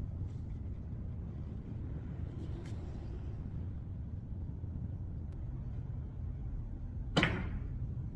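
Cue tip striking the yellow cue ball on a carom billiard table, one sharp click about seven seconds in, over a steady low room rumble.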